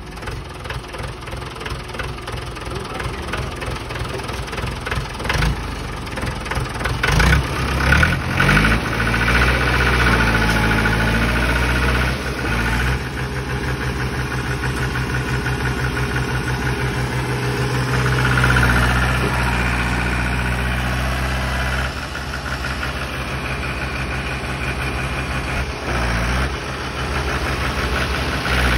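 Diesel tractor engine running close by, working hard while towing a tractor stuck in mud, with a fast, even chugging beat. It revs up about seven seconds in, stays under heavy load, and drops back about twenty-two seconds in.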